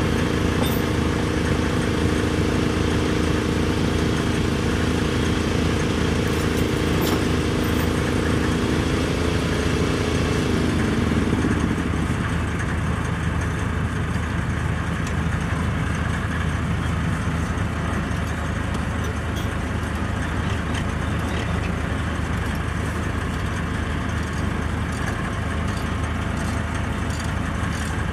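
Diesel semi-truck engine running steadily at low revs. A higher steady whine rides on top of it and winds down and stops about eleven seconds in, leaving the low engine note.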